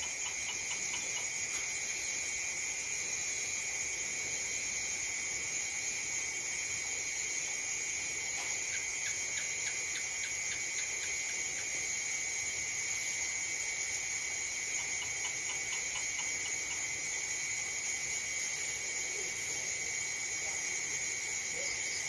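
Dense evening chorus of insects such as crickets, a steady high-pitched shrilling. Twice, trains of rapid pulsed calls stand out from the chorus for a few seconds.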